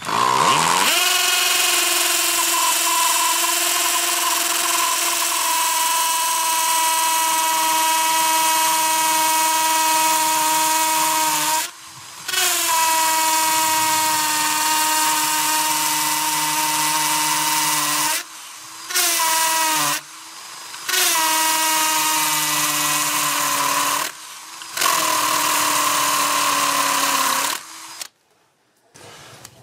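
JCB 21-18CD 18 V cordless combi drill running under load in a series of runs with short pauses between them, giving a steady motor whine with a hiss over it. The first run lasts about ten seconds, then the trigger is released and pulled again four more times, once only briefly.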